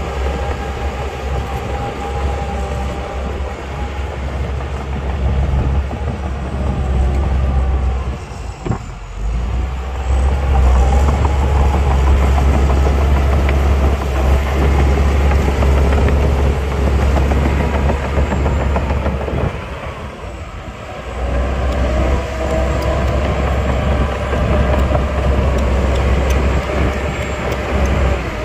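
Heavy diesel earthmoving machinery running, a deep steady rumble that dips briefly about nine seconds in and again around twenty seconds in, with wavering whining tones above it.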